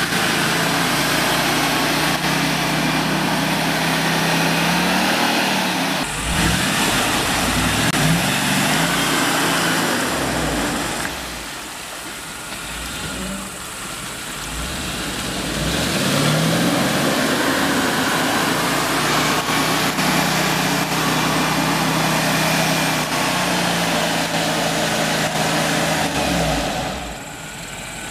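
Mercedes-Benz G500's V8 engine pulling through deep mud and water, its note rising and falling with repeated bursts of throttle. It is quieter for a few seconds in the middle, when the vehicle is farther off.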